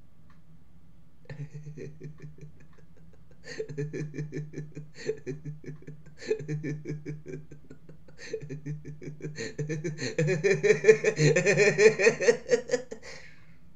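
Laughter in several bursts of quick, pulsing chuckles, the last one the longest and loudest.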